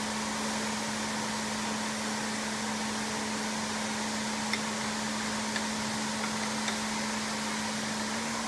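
Steady hum and hiss of running workshop machinery around a large metal lathe, with a few light metal clicks in the middle as the lathe's tool post and steady rest are handled.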